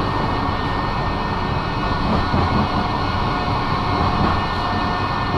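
Electric tram running along its track, heard from inside the car: a steady rumble of wheels on rails with a steady whine from the motors.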